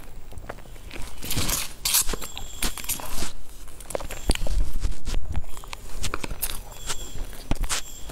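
Close-miked eating sounds: chewing with wet mouth clicks, and a fork clicking against a plastic food tray, as a series of irregular short snaps.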